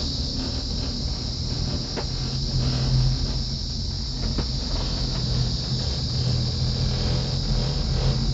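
A steady high-pitched drone of rainforest insects over the low rumble of a gondola cabin running along its cable, with a few faint clicks.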